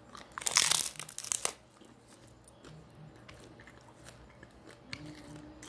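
Teeth tearing off a bite of flour tortilla close to the microphone, a loud ripping burst lasting about a second, followed by quiet chewing.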